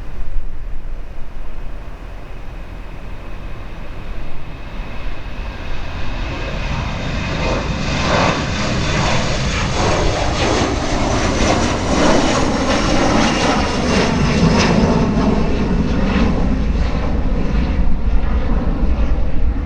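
Embraer E175 regional jet's twin GE CF34 turbofans passing close, a rising jet rush and whine that builds about six seconds in and stays loud to the end, over a steady low rumble of wind on the microphone.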